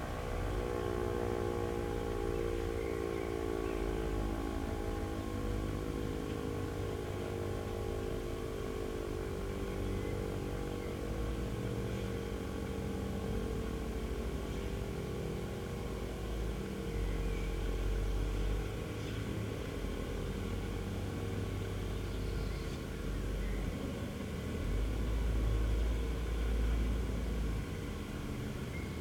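E57 electric siren running down after its alarm signal, its falling tone fading out over the first dozen seconds. Underneath is the steady diesel engine of a wheel loader, which swells twice in the second half.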